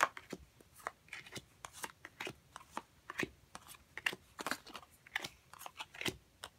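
Tarot and oracle cards being dealt one after another from the deck and laid onto a soft cloth: short, irregular card clicks and snaps, about three or four a second.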